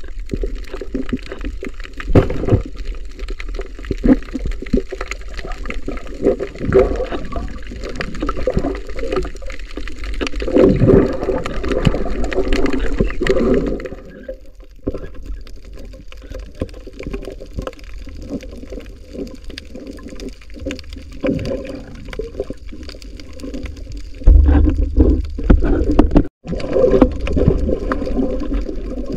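Underwater sound of water moving around a submerged camera: a steady muffled rumble with many scattered clicks and knocks. It swells into a louder low rumble near the end and cuts out for an instant just after.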